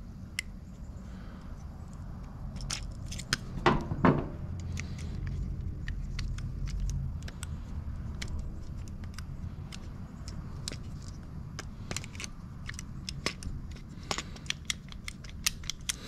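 Scattered small clicks and taps of plastic carburetor parts and throttle linkage being handled and fitted, with two louder knocks about four seconds in, over a low steady hum.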